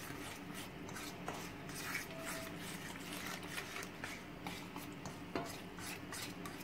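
A fork stirring wet cornmeal batter in a stainless steel bowl, the metal tines scraping and clinking against the bowl in short, irregular strokes. Water is being stirred into the dry mix to keep it free of lumps.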